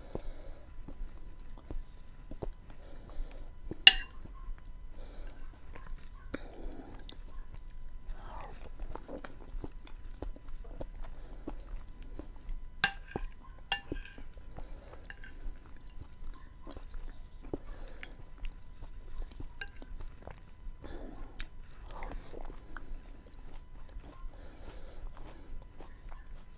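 Close-miked chewing and mouth sounds of someone eating beans with onion and tomato: soft wet chewing and smacking with some crunch, broken by many small clicks. A sharp, loud click comes about four seconds in, and two more near the middle.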